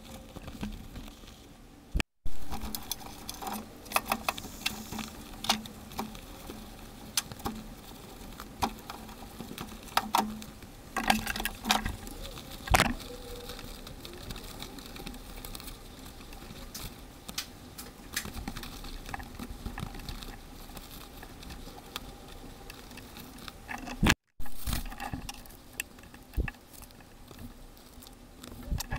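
Irregular clicks, taps and knocks from hand work on an old car seat while fitting a new seat cover, scattered unevenly with a few louder knocks.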